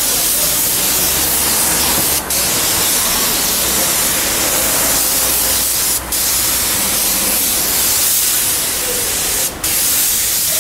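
Compressed-air paint spray gun hissing steadily as the first coat of colour is sprayed onto a plastic car bumper, breaking off briefly three times between passes.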